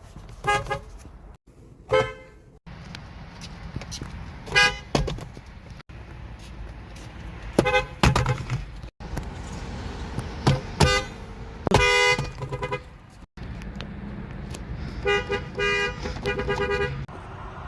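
Lexus car horns honking in a string of short beeps, some single taps and some quick clusters of two or three, each horn sounding two close pitches together. Abrupt cuts fall between the honks over a low background rumble.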